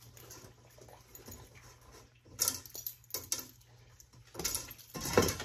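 Stainless steel colander rattling and clanking against the steel bowl beneath it as a dog noses and paws at it, in two short bouts of clattering. The pawing comes from the dog's frustration at not yet understanding the game.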